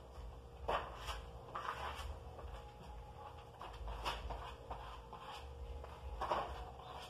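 Plastic spatula scraping and smoothing a fresh coat of slow-setting gypsum mixed with wall putty on a wall, in short irregular strokes.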